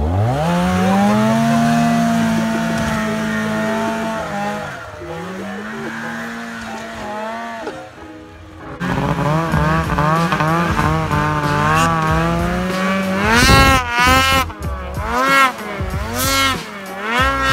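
Arctic Cat snowmobile engine revving up hard at the start and holding high revs under load, easing off briefly about four seconds in. After a break near the middle it runs steadily again, then in the last few seconds the revs rise and fall over and over as the sled is ridden through deep snow.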